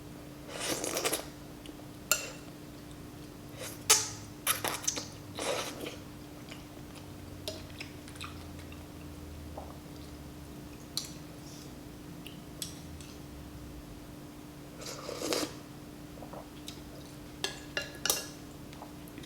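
Eating noodle soup close to the microphone: a spoon and utensils clink against the bowl, with chewing, in scattered clusters of short clicks and knocks. A steady low hum runs underneath.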